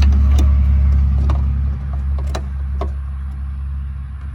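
Tail light bulb sockets being pushed and twisted into the housing: several sharp plastic clicks over a steady low rumble that fades after about two seconds.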